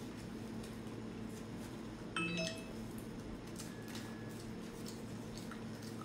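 A brief chime of several clear tones sounds once, about two seconds in, over a low steady hum. Faint soft ticks come from fingers handling a steamed bun.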